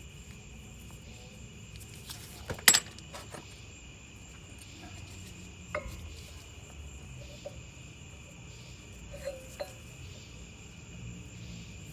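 Steady chirring of crickets, with a few sharp metal clinks as the worn, removed upper ball joint is handled. The loudest clink comes about two and a half seconds in, with fainter ones later.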